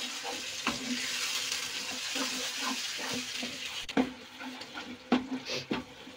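Coarse onion, garlic, ginger and tomato masala frying in hot oil in a kadhai, sizzling while a wooden spatula stirs and scrapes it, with scattered knocks of the spatula against the pan. The sizzle grows quieter about four seconds in, leaving mostly the spatula's scrapes and knocks.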